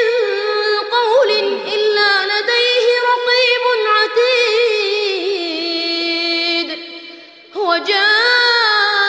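A male reciter chanting the Quran in melodic tajwid style, in a high voice with long held, ornamented notes; he breaks briefly about seven seconds in, then resumes.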